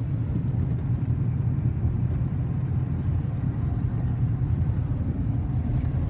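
Steady low rumble of a car's engine and tyres on the freeway, heard from inside the moving car's cabin.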